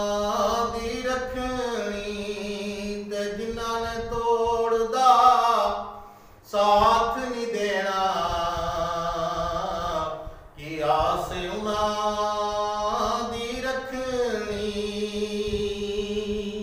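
A man chanting Punjabi Sufi kalam in long, drawn-out melodic lines, with two short breaks for breath about six and ten seconds in.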